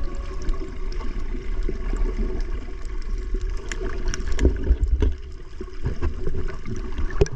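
Seawater splashing and gurgling, with a heavy low rumble of wind on the microphone and a few sharp knocks.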